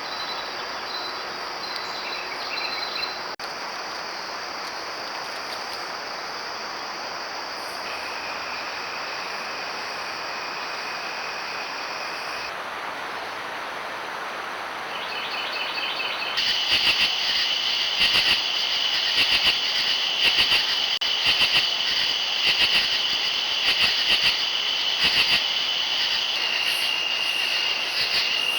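Chorus of insects such as crickets, with steady high trills over a constant hiss. The mix changes abruptly about twelve seconds in, then gets louder about sixteen seconds in, with fast pulsing trills.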